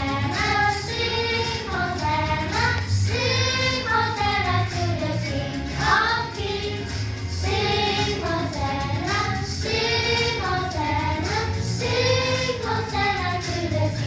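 Children's choir of primary-school pupils singing a Christian praise song, holding long sung notes that move smoothly from one pitch to the next.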